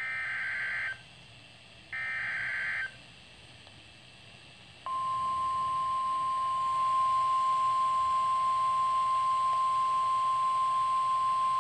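A Midland NOAA weather alert radio receiving a National Weather Service warning. First come two short bursts of SAME digital header data, each about a second long, then about two seconds of quiet. About five seconds in, the single steady warning alert tone starts and holds. Here it heralds a flash flood warning.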